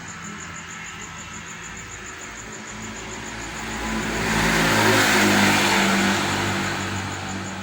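A motor vehicle passes, its engine and road noise swelling to a peak about five seconds in, then fading. A steady, fast-pulsing high tone runs underneath.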